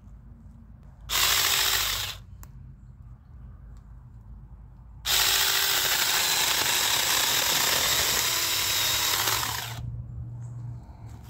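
Saker mini cordless electric chainsaw running: a short burst of about a second, then a longer run of nearly five seconds as the chain cuts into a branch, with a faint motor whine as it starts and stops.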